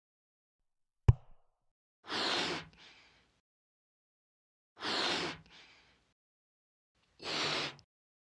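Balloon being inflated: a sharp click about a second in, then three half-second puffs of rushing air a couple of seconds apart.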